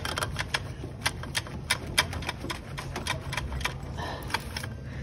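Irregular clicks and light knocks, several a second, as the press-fit water-pump coolant pipe is forced and worked by hand behind the engine, with a steady low hum underneath. The pipe stays stuck and does not come free.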